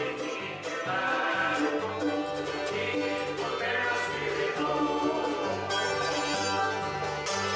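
A bluegrass band playing live, with banjo, mandolin, fiddle, acoustic guitar and an upright bass stepping between low notes.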